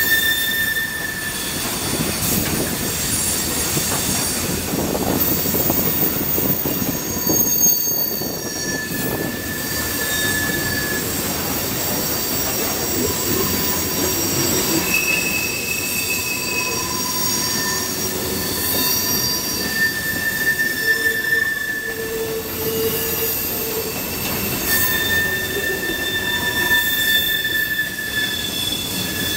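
Freight-car wheels squealing on a sharp curve: a shifting chorus of high, steady screeching tones at several pitches that come and go every few seconds over the rumble of the train's wheels on the rails. The uploader blames the curve's lack of banking for the squeal.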